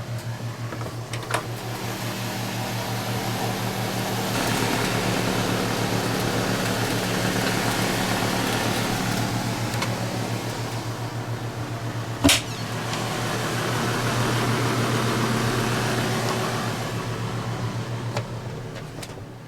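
Steady low mechanical hum with an even pulsing, from a running fan or motor. A rushing noise swells and fades through the middle, and there is a single sharp knock about twelve seconds in.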